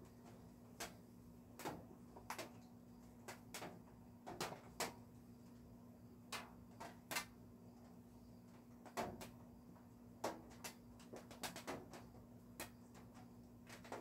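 Raindrops hitting the studio roof: scattered, irregular sharp taps, one or two a second, over a faint steady hum.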